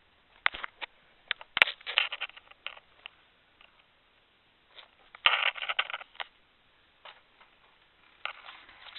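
Handling noise from a 1/18-scale die-cast model car: bursts of small clicks, taps and scrapes, the busiest about a second in and again around five to six seconds in, with one sharper click between them.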